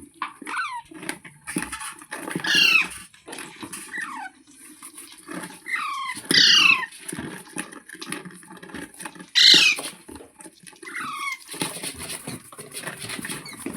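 A pet green parrot calling: about six short, shrill calls that drop in pitch, the loudest about two-thirds of the way in, with softer chattering between them.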